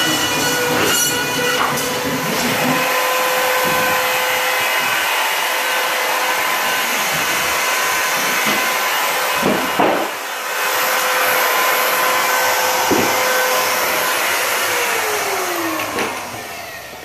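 High-speed electric power tool motor running steadily with a high whine, with a couple of knocks partway through; the motor spins down and stops near the end.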